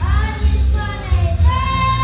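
A young boy singing a gospel song into a handheld microphone over a recorded accompaniment with a pulsing bass, holding a long note near the end.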